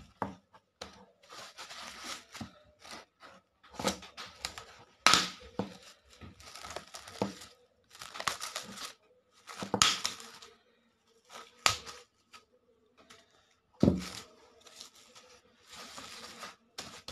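Plastic cling film crinkling and rustling in irregular bursts as it is stretched and pressed down over a ball of dough in a bowl, with a few sharp knocks, the loudest about five seconds in and near the end.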